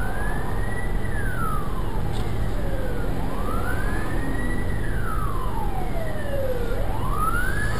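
Emergency vehicle siren wailing, its pitch rising quickly and falling slowly in a cycle of about four seconds, over the steady low rumble of traffic.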